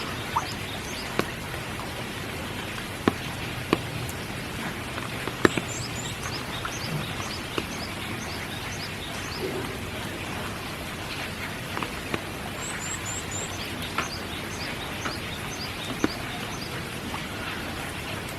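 Steady spring rain falling, with scattered louder drops striking nearby surfaces. A small songbird calls over it in quick runs of short, very high chirps, twice: about five seconds in and again about twelve seconds in.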